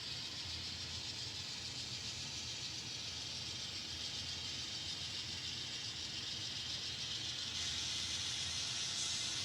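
N scale model grain train running along the track, a steady whir and hiss of its small locomotive motors and wheels on the rails, getting slightly louder near the end.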